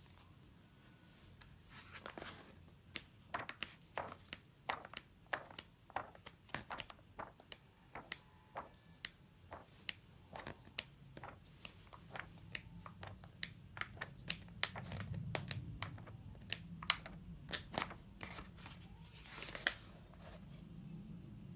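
Paper pages of a paperback colouring book turned by hand: a run of sharp flicks and rustles, about one or two a second, beginning about two seconds in.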